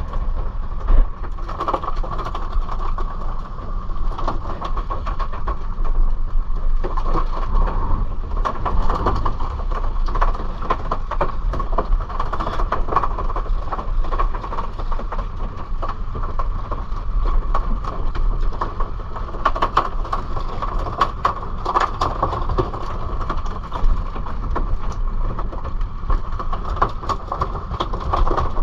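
Fishing boat's engine running steadily, a low rumble with a constant whine, mixed with the rush of wind and water and scattered short knocks from handling the line on deck.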